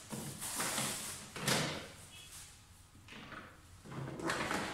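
A ring light and its wrapping being handled on a tabletop: rustling and several knocks, the loudest about a second and a half in.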